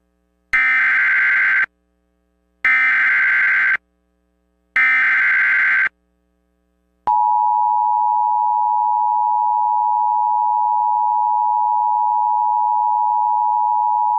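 Emergency Alert System header: three bursts of buzzing digital data tones, each about a second long. About seven seconds in comes the steady two-tone EAS attention signal (853 and 960 Hz together), which holds without change. Together they mark the start of an emergency alert broadcast, here an Amber Alert.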